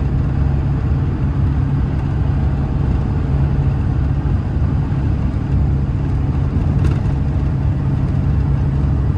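A hotshot truck towing a loaded trailer at highway speed, with a steady, loud low drone of engine and road noise.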